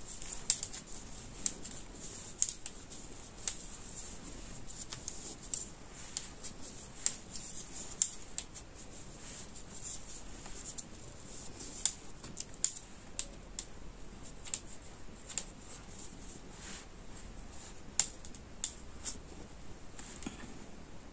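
Metal knitting needles clicking against each other in sharp, irregular ticks, about one a second, as stitches are worked in chunky T-shirt yarn.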